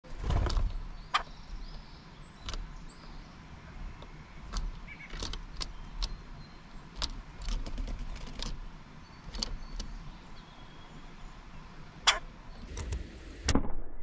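Irregular sharp clicks and knocks, about fifteen of them, over a fluctuating low rumble. The loudest knocks come at the very start and again near the end.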